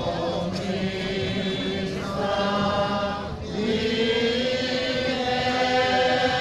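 A group of men, the lamentatori, singing a Sicilian Holy Week lament unaccompanied in several voice parts. They hold long notes, with brief breaks about two seconds in and again just past three seconds, and a higher voice enters on a held note about five seconds in.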